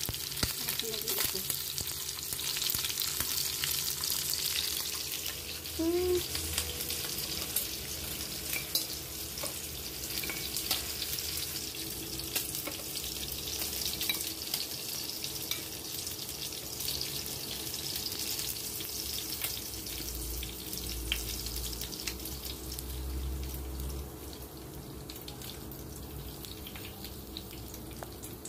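Pork pieces pan-frying in hot oil in a nonstick frying pan: a steady sizzle with many small pops and crackles, easing off a little near the end.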